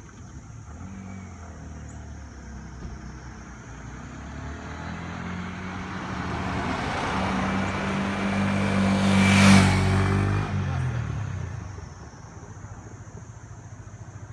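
A car and a motorcycle driving past on a road: engine sound building as they approach, peaking with a rush of tyre noise about nine to ten seconds in, then fading quickly as they go by.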